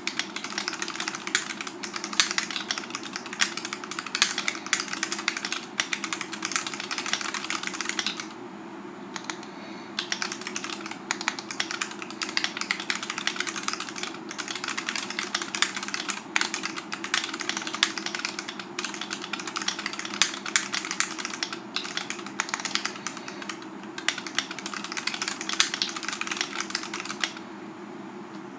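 Typing on a TOFU65 custom 65% mechanical keyboard with Tealios V2 linear switches, whose switches and stabilizers are not yet lubed or filmed. The keystrokes are rapid and continuous, with a pause of about two seconds a third of the way in, and they stop shortly before the end.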